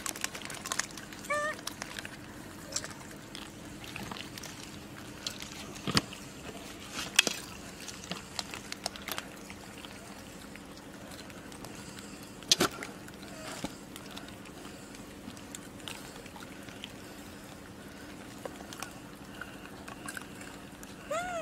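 Long-tailed macaque troop at close range: a steady background wash with scattered sharp taps and knocks, and a few short squeaky calls, the loudest a single arching call near the end.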